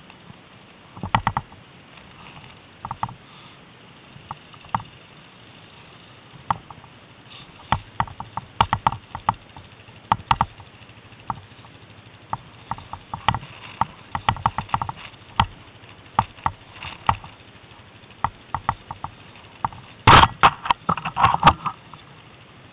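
Irregular clicks, knocks and rattles as the camera and the ATV jolt over rough snow, with a dense, loud cluster of them near the end, over the ATV engine's faint steady low hum.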